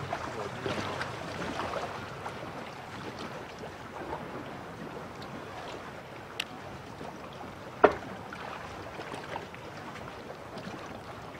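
Sea water lapping and sloshing against the side of a floating fishing platform, with wind, a little stronger in the first couple of seconds. A single sharp click sounds about eight seconds in, with a fainter one shortly before it.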